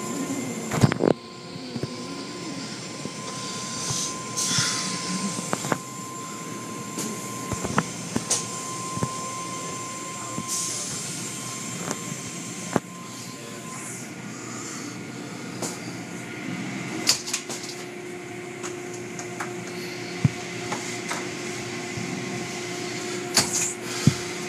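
Automatic car-wash machinery working over a car, heard from inside the car: water spray and brushes and cloth strips washing over the body, over a steady machine hum. Scattered knocks and slaps run through it.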